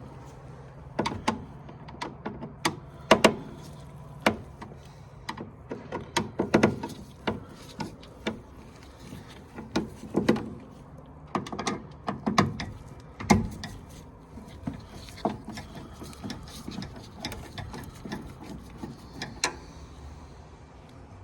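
Irregular sharp metallic clicks, clinks and knocks of tools and screws being worked on a furnace's sheet-metal inducer assembly, over a low steady hum in the first few seconds.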